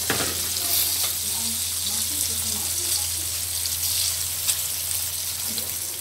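Salted fish shallow-frying in hot oil in a wok: a steady sizzle with small spitting crackles throughout, and a single sharp click about a tenth of a second in.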